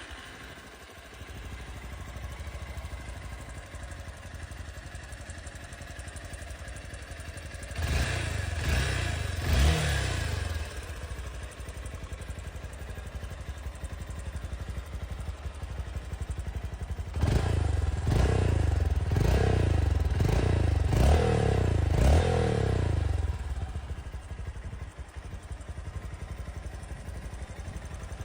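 Honda XR190L's air-cooled single-cylinder four-stroke engine idling through its exhaust. It is blipped a few times about eight seconds in, then revved in a quick run of about six blips, and settles back to idle.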